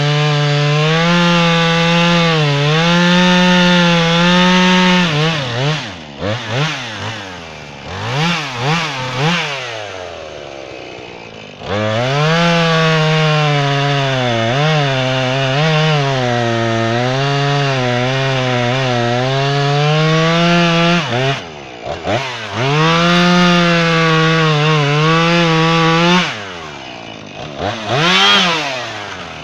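Jonsered chainsaw cutting red oak at full throttle, its engine pitch dipping and recovering under load. The saw goes through three cuts; between them the throttle is let off and blipped, so the revs fall and rise in quick swoops.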